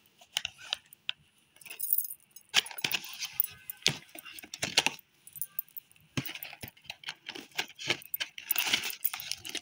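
A small cardboard gift box being handled and opened: irregular rustling and clicks of card and paper, with metal bracelets on the wrist jingling as the hand moves.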